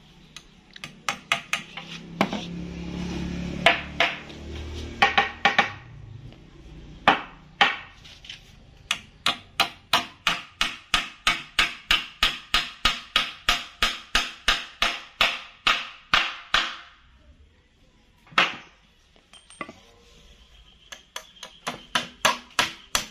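Hammer blows on hardwood work, in a long even run of about three strikes a second, then a pause and a further run of blows near the end. A short patch of low rumbling noise comes between the first scattered blows.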